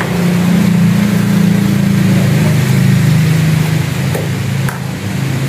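A steady, loud, low engine-like drone, its pitch sinking a little about three seconds in.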